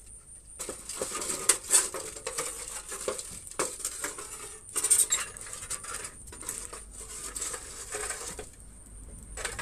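Metal rod and hand tools scraping, knocking and clinking against a metal pan full of aluminium drink cans on a fire, in irregular clattering strokes with the loudest knocks about a second and a half in and again at about five seconds, dying down near the end.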